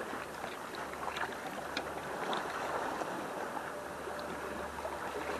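Sea washing against harbour rocks, a steady rushing noise with a few faint ticks and a low steady hum underneath.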